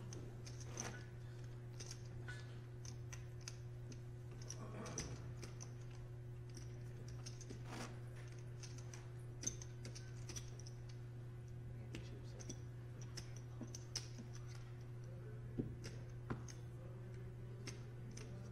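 Scattered light clicks of poker chips being handled, over a steady low electrical hum.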